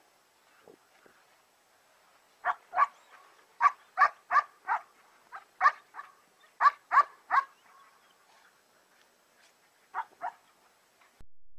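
Three-month-old German Shepherd puppy barking: a quick run of about a dozen short barks, then a pause and two more barks near the end.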